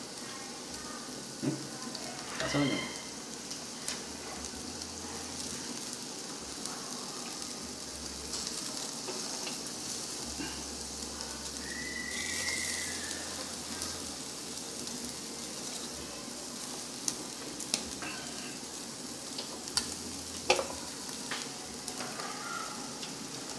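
Pork ribs sizzling on a tabletop grill's wire rack: a steady frying hiss, with a few light clicks as pieces of meat are moved and added.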